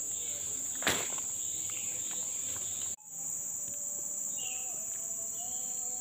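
A steady high-pitched chorus of insects shrilling without a break. There is a short sharp knock about a second in, and the sound drops out for a moment about halfway through.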